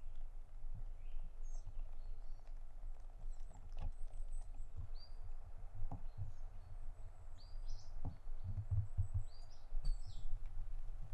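Small birds chirping, many short high calls and trills scattered throughout, over a steady low rumble, with a few soft knocks mixed in.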